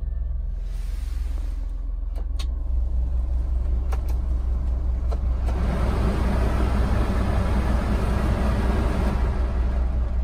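Honda Acty's small three-cylinder engine idling steadily, heard from inside the cab, with a few light clicks from the dashboard controls. About five and a half seconds in, the heater blower fan switches on and adds a steady rush of air.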